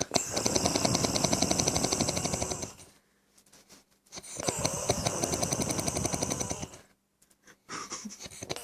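Snoring: two long, rattling snores of about two and a half seconds each, with a fast even flutter, separated by a pause of about a second and a half.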